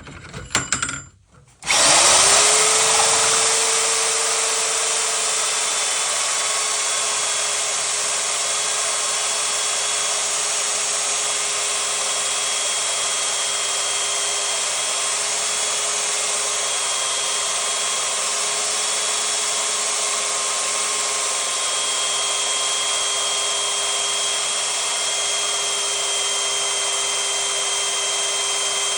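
A diamond drilling machine starts up after a few short knocks. Its motor whine rises quickly to a steady pitch and it runs evenly under a dense hiss.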